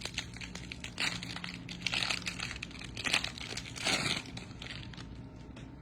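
Wrapper of a trading-card pack crinkling and cards being handled, in short rustles about once a second.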